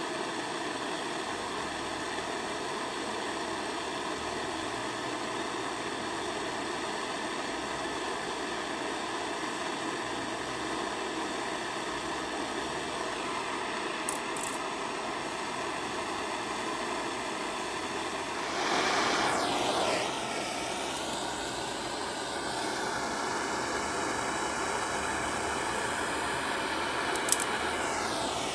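Butane-propane gas torch burning with a steady hiss, heating aluminium for a solder repair. About two-thirds through it grows louder with sweeping shifts in tone, and there is a light click near the end.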